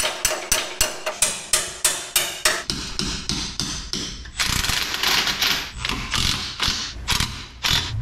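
Hammer striking steel parts, about three ringing blows a second, while four-link bars are fitted to the axle brackets. About two and a half seconds in, the blows give way to quicker clicking and clattering of hand tools and metal parts.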